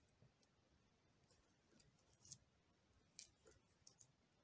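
Near silence with a few faint clicks of metal knitting needles as stitches are worked, mostly in the second half.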